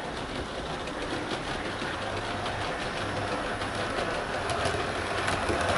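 Hornby Class 395 Javelin model train running along the track toward the camera: a steady motor hum with wheel noise and scattered light clicks, growing louder as it nears.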